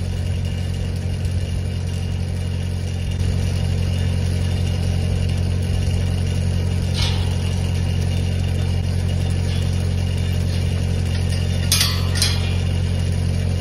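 An engine running steadily at idle, with a few light metal clanks from a steel pipe gate being swung on its freshly tacked hinges and brought against its post: one clank about halfway through and two close together near the end.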